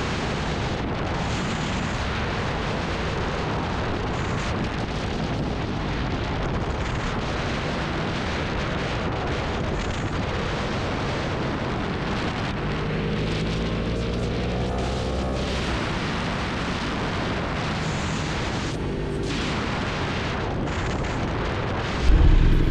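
Wind rushing over the helmet or action camera microphone on a Yamaha sportbike riding at speed, a steady noise that buries most of the engine. For a few seconds around the middle the engine note comes through, rising as the bike accelerates. Near the end a sudden, louder sound comes in.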